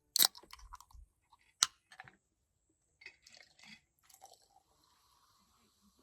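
Close-up handling or crunching noises: two sharp clicks, the first near the start and the second about a second and a half in, then a short spell of crunchy crackling that fades out.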